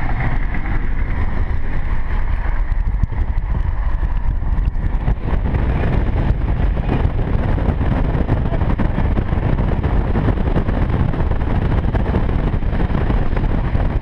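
Car at motorway speed heard from inside the cabin: a steady rush of wind and road noise through an open side window, buffeting the microphone. The wind noise grows fuller about five seconds in.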